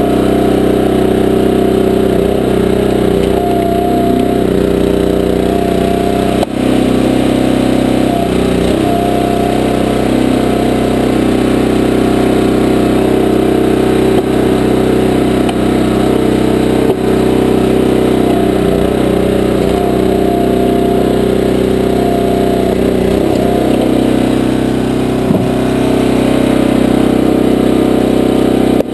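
The small gas engine of a 20-ton Powerhorse dual-split log splitter running steadily at working speed, its pitch sagging briefly a few times as it takes load from the hydraulic pump while a log is split.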